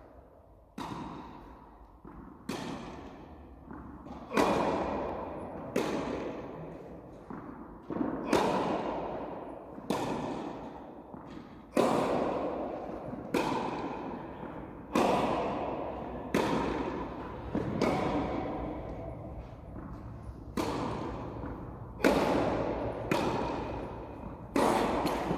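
Tennis rally: a tennis ball struck by rackets and bouncing on the court, a sharp pock about every one and a half seconds. Each hit rings out with a long echo in a large indoor tennis hall.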